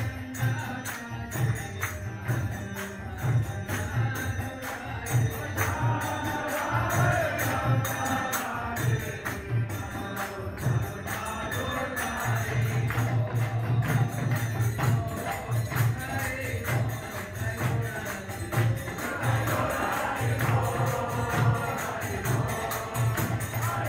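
Kirtan: a crowd of voices chanting a devotional mantra together over a steady, driving drum beat, with jingling hand cymbals.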